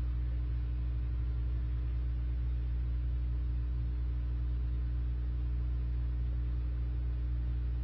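Steady low electrical hum from the meeting room's audio system, unchanging throughout, with nothing else heard.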